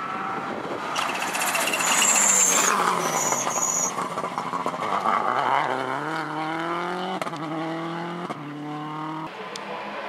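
Turbocharged flat-four of a Subaru Impreza WRC rally car at full throttle. First comes a loud rushing pass with two short high squeals; then the engine revs hard up through two quick upshifts, and the sound cuts off abruptly near the end.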